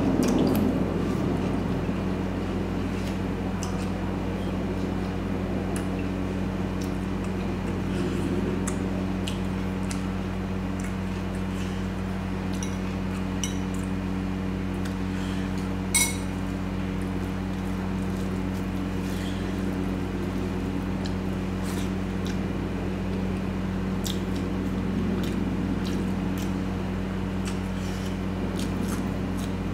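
Close-miked eating of mutton curry with rice: soft wet squishes and small clicks of food and plate, with one sharp clink about halfway through. A steady low electrical hum runs underneath.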